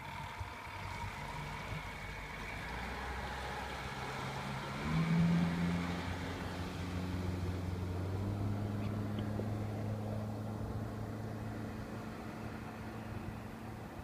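Yamaha F115 four-stroke outboard on a small cabin boat opening up about five seconds in, rising in pitch, then running steadily at speed as the boat pulls away.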